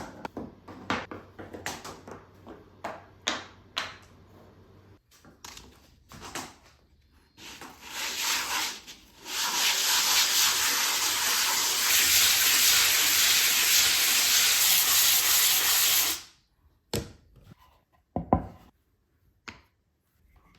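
Scattered knocks and clicks, then a steady spray hiss: a short burst followed by a long one of about six seconds that cuts off sharply. A few more knocks follow.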